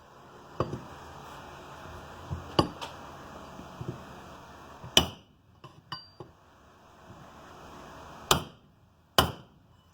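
Mini sledgehammer tapping a steel pipe that drives a new steering stem bearing down onto a motorcycle's lower triple clamp. There are five sharp metallic strikes at uneven gaps of one to three seconds, each ringing briefly, with a few lighter knocks between them; the bearing is inching its way down the stem.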